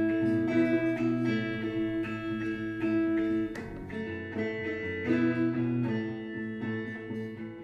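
Background music on plucked guitar, notes picked in a steady flowing pattern.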